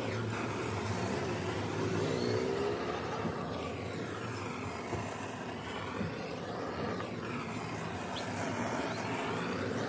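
Gas blowtorch flame hissing steadily as it is played along a plastic car headlight housing, with a low steady hum underneath.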